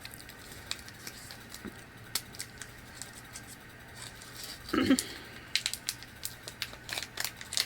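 Chocolate bar wrapper crinkling and crackling in hands as it is opened, with scattered sharp crackles that come thickest in the last couple of seconds.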